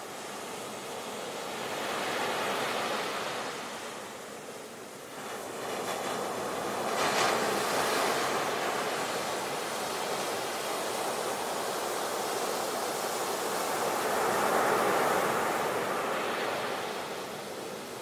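Sea waves breaking and washing in: surf that swells and fades in surges, with the loudest crash about seven seconds in and another swell near the end.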